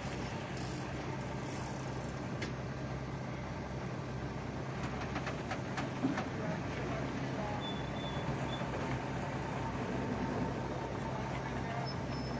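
Engine running steadily with a constant low hum, with a few light clicks.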